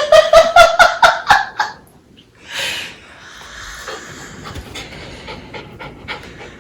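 A person imitating a dog's panting: quick pitched huffs, about five a second, rising slightly in pitch and stopping after about a second and a half. One breathy puff follows, then faint rustling.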